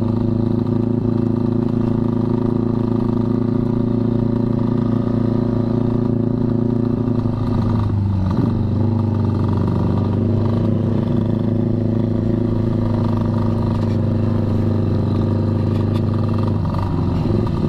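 Old two-stroke underbone motorcycle engine running at a steady low speed while riding. Its note shifts about eight seconds in and again near the end.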